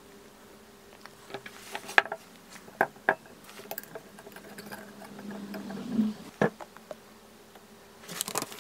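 Cork pieces and a bent holding strip being set into a glass beaker: scattered sharp clicks and taps against the glass, the sharpest about two seconds in and a cluster near the end, over a faint steady hum.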